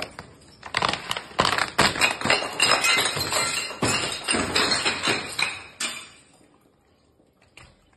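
A glass bottle full of water beads tumbling down marble stairs, knocking and clinking on the steps in a rapid run of impacts. It starts about a second in and stops about six seconds in.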